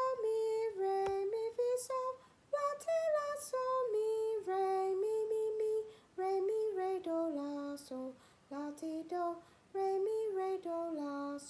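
A woman singing solfège patterns unaccompanied: four short phrases of held notes, mostly stepping down in pitch, with brief breaths between them.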